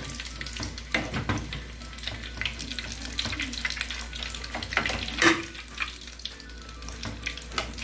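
Pastéis frying in hot oil in an aluminium pot, a steady sizzle, with a metal slotted spoon clinking and scraping against the pot as they are turned and lifted. One louder knock about five seconds in.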